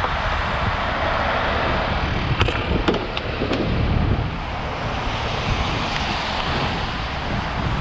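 Steady freeway traffic noise with wind buffeting the microphone, a few light clicks or knocks between about two and a half and three and a half seconds in.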